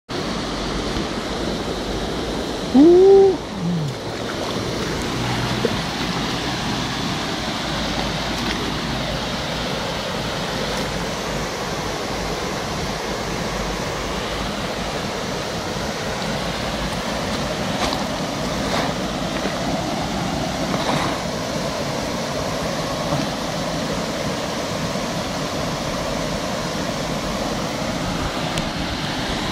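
Steady rush of torrent water. About three seconds in, one short, loud sound rises and then falls in pitch.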